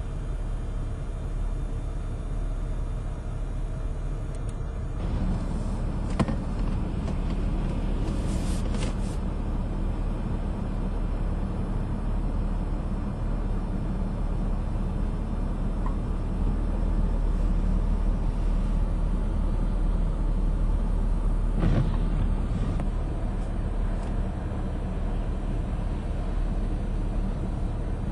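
Heavy storm surf crashing against and over a seawall in strong wind: a steady low roar, with a few short sharper crashes.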